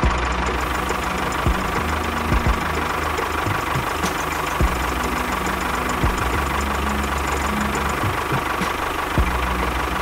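Tractor engine running steadily with a low, knocking chug.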